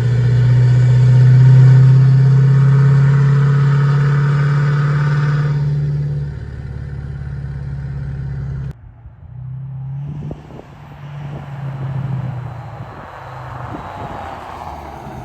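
A motor vehicle's engine running with a loud, steady drone. It drops somewhat about six seconds in and cuts off abruptly near nine seconds, leaving quieter, uneven engine and road noise.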